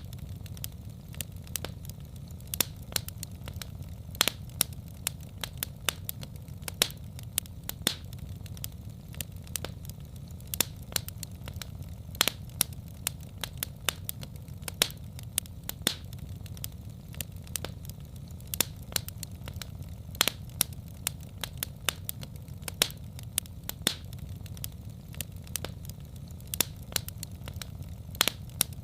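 Wood fire in a fireplace crackling: irregular sharp pops and snaps, several a second, over a steady low rumble of burning.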